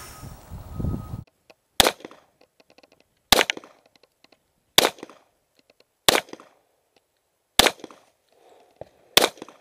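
Six handgun shots, evenly spaced about a second and a half apart, each a sharp crack with a short echo, after a brief low rumble at the start.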